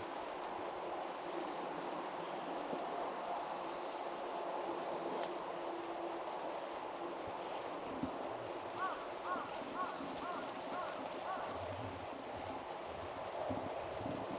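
Steady rain falling. Over it, a high chirp repeats evenly a little over twice a second, and a run of lower chirping calls comes about nine seconds in.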